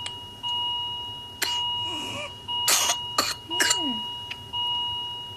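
Coughing fit of a person with whooping cough: a cough about a second and a half in, then a run of sharp coughs about 2.5 to 4 seconds in, with short strained vocal gasps between them. Underneath, an electronic alarm sounds a steady two-pitch tone that restarts about every two seconds.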